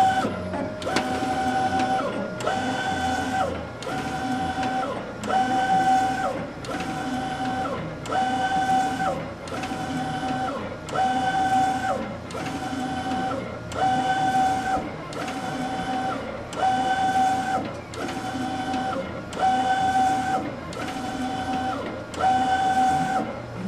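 Direct-to-garment inkjet printer printing onto T-shirts: the print-head carriage sweeps back and forth about once a second, its motor whine rising and falling with each pass. The passes stop near the end.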